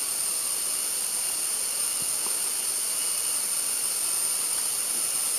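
Rainforest insects droning steadily in one unbroken high-pitched tone, over an even hiss.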